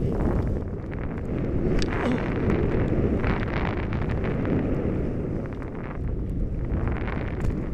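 Wind buffeting the microphone of a skier moving fast down a deep-powder slope, a loud, rough rush with uneven surges.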